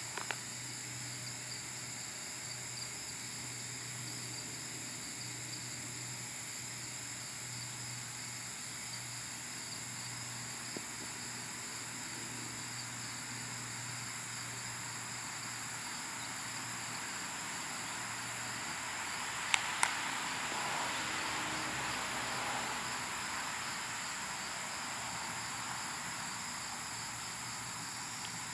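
Steady, high-pitched chirring of crickets over a low hum. About two-thirds of the way in come two sharp clicks, then a broad hiss that swells and fades over several seconds.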